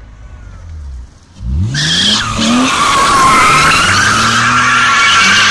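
BMW E46 330Ci's straight-six engine revs up sharply about a second and a half in, and the rear tyres break into a loud continuous squeal as the car spins donuts. The engine stays high underneath. The car is being tested with a newly fitted limited-slip differential.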